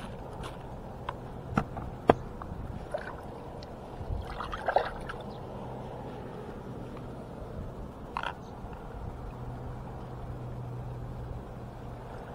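Plastic cooler box being handled: a few sharp knocks and a short clatter as a bagged fish goes in and the lid is shut, with one more knock later. A low steady hum runs underneath.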